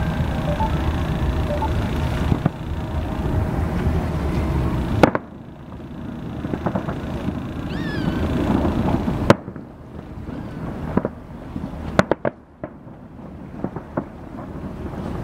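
Aerial fireworks bursting: sharp bangs about five, nine and twelve seconds in, with smaller cracks between. A steady low rumble from the boat fills the first five seconds and drops away at the first bang.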